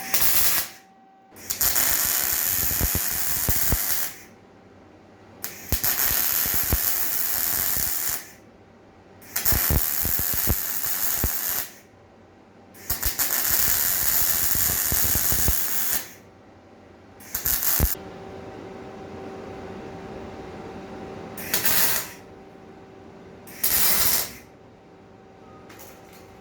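Electric welding arc crackling in repeated short welds, a few seconds each with pauses between, as small steel wires are tacked onto a steel frame. The later welds are briefer.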